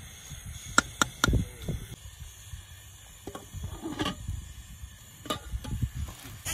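A metal fork clinking and scraping against the rim of a cooking pot while chicken pieces are stirred, with three sharp clinks close together about a second in. A few more clinks and knocks follow as the lidded pot is set back on the gas burner.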